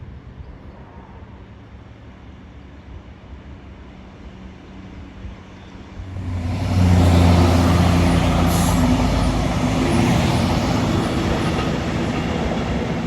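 A train approaching and passing: a low engine hum at first, then about six seconds in the engine and wheel-on-rail rumble suddenly get loud and stay loud as it goes by.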